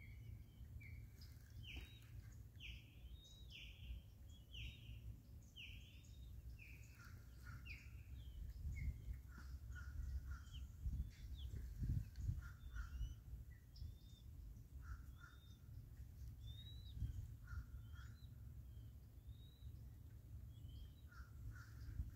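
Faint wild bird calls. A run of short calls, each falling in pitch, repeats over the first several seconds, then scattered chirps follow, over a low steady rumble.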